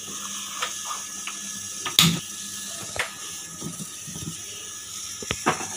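Steel pot of jaggery and water being handled: a few scattered metallic clinks and knocks, the loudest about two seconds in.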